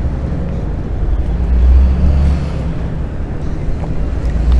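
Wind buffeting a body-worn camera's microphone while walking: a steady low rumble that swells and eases.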